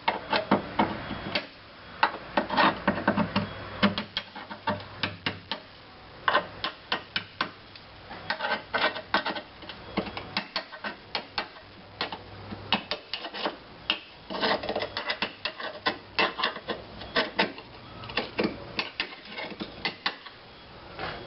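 Hand tool chipping and scraping crumbling rusted steel out of a car body panel: irregular sharp taps and clicks, often in quick runs, with scraping between them.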